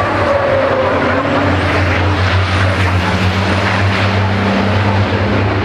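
Racing trucks' diesel engines running under power, a loud, steady engine drone.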